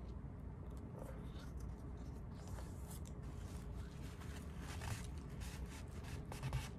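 Soft rustling and scraping of a water-soaked paper towel being pressed and rubbed over temporary-tattoo backing paper on a painted board, to wet it so the tattoo transfers. The faint crinkles and rubs start about a second in, over a low steady hum.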